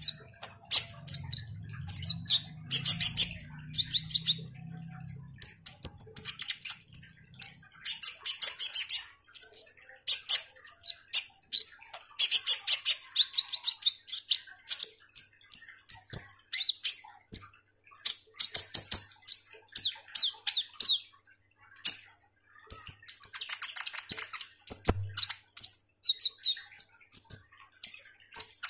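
Male Van Hasselt's sunbird (kolibri ninja) in full song: a fast, rambling run of high chirps, trills and sweeping notes, delivered in quick bursts with only short pauses between them.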